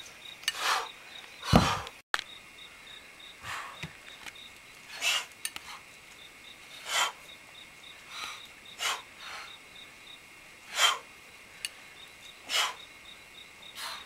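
Short, forceful exhalations from people swinging heavy iron clubs, one breath with each swing, about every two seconds. A faint steady insect chirring runs underneath.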